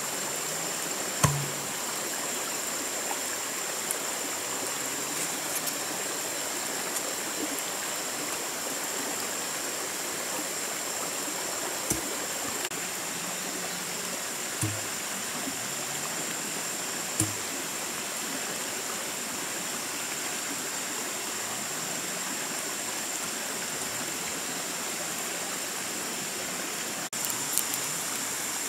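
A steady rushing hiss with a thin, constant high whine over it. A few dull, hollow knocks stand out now and then as a bamboo pole is thumped down into the ground.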